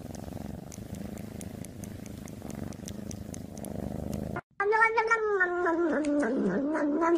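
A cat purring close to the microphone: a steady low rumble. After a brief break about four seconds in, a long wavering high tone takes over.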